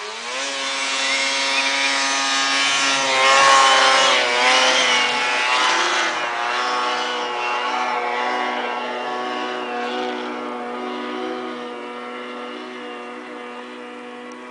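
Snowmobile engine revving up and running at high, steady revs as the sled climbs a steep snow-covered hill, its pitch wavering a few times and the sound slowly fading as it pulls away.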